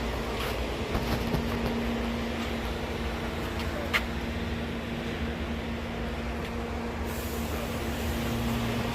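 Steady mechanical hum over a noisy background, with a single sharp click about four seconds in.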